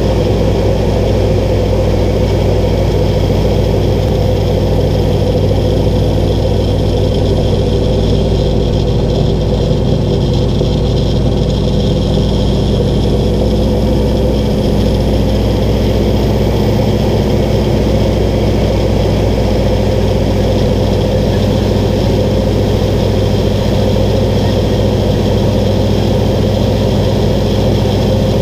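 North American T-6 Texan's radial engine and propeller droning steadily, heard from inside the cockpit during a loop. The engine note shifts slightly upward about halfway through.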